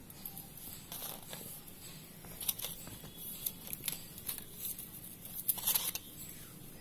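Hands handling small rolled quilling-paper coils and a glue stick on a sheet: scattered light rustles and small clicks, with a quick run of them near the end.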